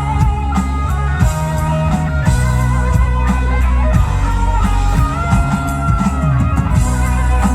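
Rock band playing an instrumental passage: a lead guitar holding and bending sustained notes over bass and drums.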